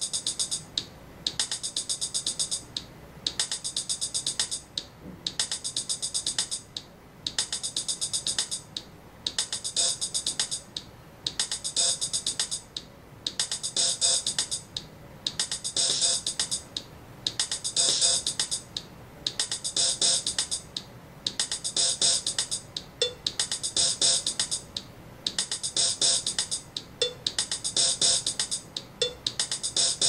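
Drum-machine loop of sampled drum-kit sounds from an eye-controlled step sequencer: bass drum and snare under a bright run of rapid hi-hat-like hits that repeats about once a second. Further drum hits join the pattern partway through as beats are added to the grid.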